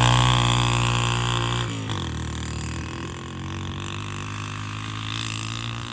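Yamaha TT-R125 dirt bike's single-cylinder four-stroke engine pulling hard under load as it tows a bundle of tied-up tires up a hill. The engine note drops abruptly about two seconds in, then runs on lower and fainter as the bike climbs away.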